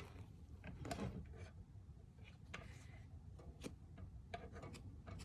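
Faint, scattered light taps and rubbing, like small objects handled on a work surface.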